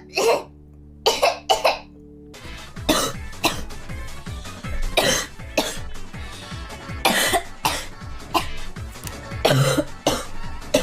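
A girl coughing repeatedly: about ten short, harsh coughs, single and in pairs, every second or two, over background music.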